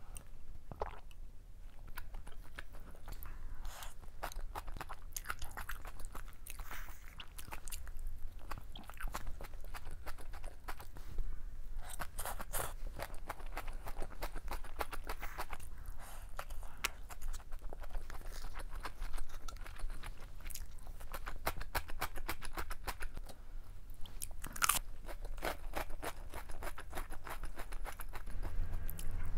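Close-miked eating sounds: steady wet chewing with crisp crackling crunches, louder in a few clusters. Near the end the crunch comes from bites of fried shrimp toast (menbosha).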